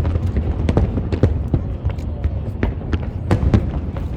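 Fireworks bursting in a rapid, irregular series of sharp bangs, several a second, over a steady low rumble.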